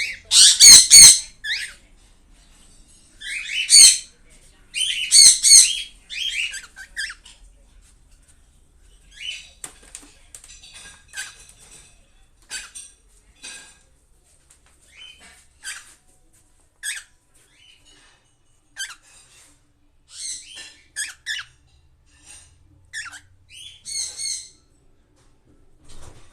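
Pet cockatiels calling: loud, harsh squawks in the first six seconds, loudest about a second in. Softer scattered chirps follow, with a few louder squawks near the end.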